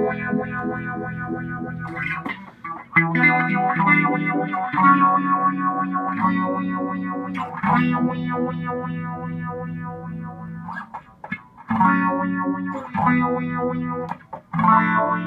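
Electric guitar chords strummed and held through a Source Audio Stingray filter pedal, the filter moved by the Hot Hand motion-sensing ring as the picking hand moves. The chords change every second or two, with brief stops near the end.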